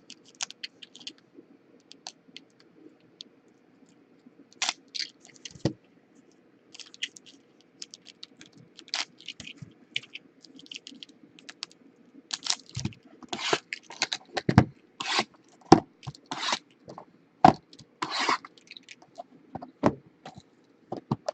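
Trading card packs and cards being handled on a table: irregular scraping and crinkly rustling, busier in the second half, over a faint steady low hum.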